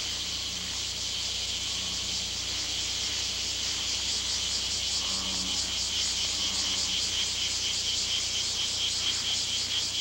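Steady, fast-pulsing high-pitched chirring of an insect chorus, with a faint low hum beneath it.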